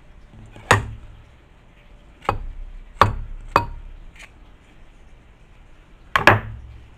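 A metal garlic press crushing a garlic clove over a ceramic bowl: about six sharp metallic clicks and knocks at uneven spacing, with a double knock near the end.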